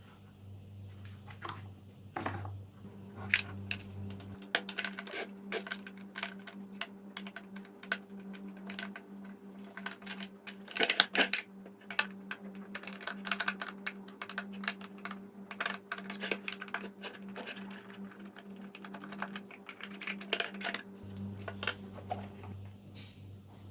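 Many quick small clicks and taps, like plastic parts being handled and worked on by hand, busiest about eleven seconds in, over a steady low hum.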